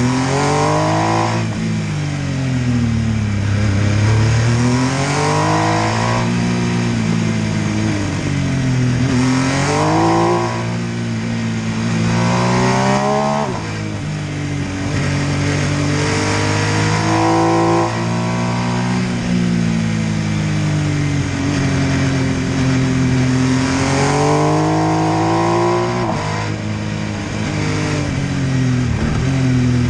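MV Agusta F3 800's three-cylinder engine under way, its pitch repeatedly climbing under acceleration and then dropping away as the throttle closes. There are about half a dozen of these rises and falls.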